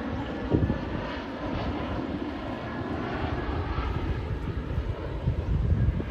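Airplane flying low overhead, a steady engine rumble.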